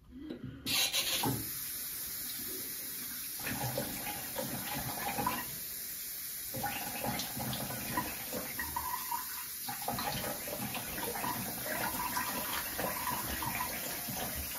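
Bathroom sink tap running steadily, turned on just under a second in, with irregular splashing in the stream as water is used to rinse after a shave.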